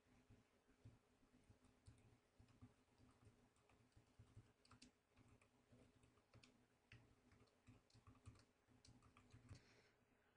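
Faint computer keyboard typing, irregular key clicks as a command is keyed in, over a low steady hum.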